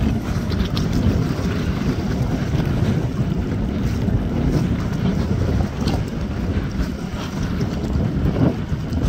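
Wind buffeting the microphone: a steady, gusting low rumble.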